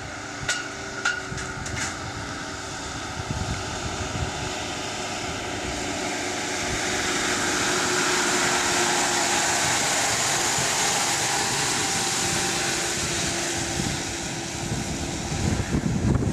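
Iveco Daily van's diesel engine running under load while driving up a ramp and along on two wheels, with a few sharp knocks in the first two seconds. A steady rush of engine and tyre noise follows, swelling toward the middle, with low rumbling thuds near the end.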